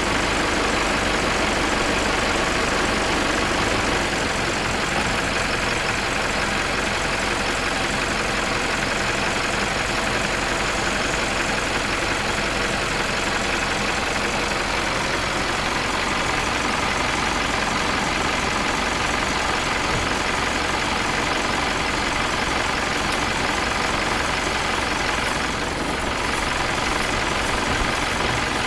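Old diesel truck engine running steadily, then cutting off suddenly at the end.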